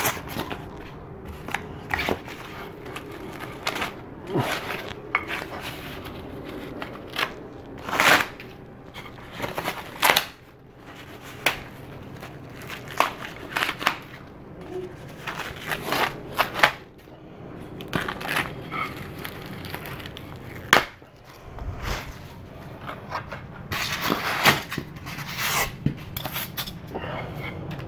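Packaging being torn and crinkled as wooden bar-stool parts are unwrapped, with irregular sharp crackles, clicks and knocks throughout and a denser bout of tearing near the end.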